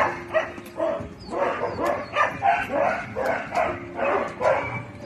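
Dogs barking repeatedly, about three barks a second.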